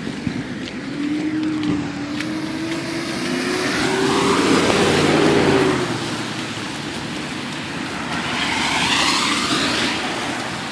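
Cars driving through a flooded street. An engine note rises as one vehicle approaches, and the hiss of its tyres through the water peaks about five seconds in. A second vehicle splashes past near the end.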